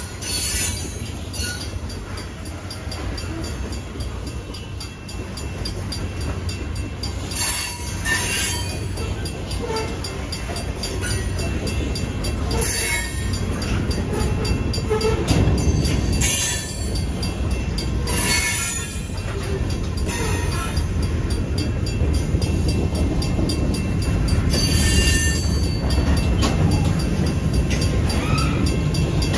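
Freight train of covered hoppers and tank cars rolling slowly past a level crossing: a steady low rumble of wheels on rail with short squeals and screeches now and then, over the regular ringing of the crossing bell.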